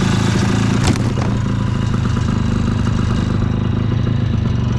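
Ski-Doo Tundra snowmobile engine running steadily at low speed, with one sharp knock about a second in.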